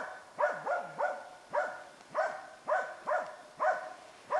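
Dog barking over and over in a steady rhythm, about two barks a second, baying at a moose.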